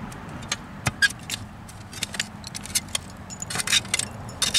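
Shovel digging into privy-pit fill: a string of short scrapes and clinks, the sharpest about a second in and a close cluster near the end.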